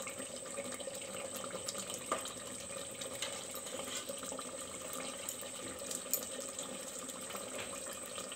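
Thick chicken gravy bubbling and sizzling in a metal pot over a low gas flame, a steady crackle of small pops. A steel spatula stirs and scrapes through it, with a couple of sharper clicks against the pot.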